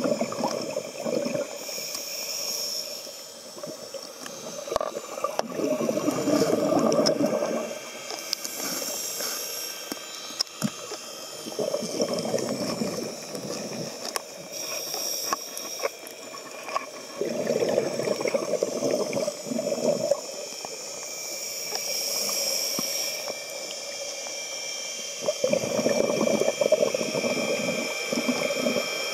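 Scuba diver breathing through a regulator underwater: exhaled bubbles rumble out every five or six seconds, with a higher hiss of inhaling between them. Under it all runs a steady high-pitched whine of underwater noise, which the uploader guesses is a jet engine or a speed boat.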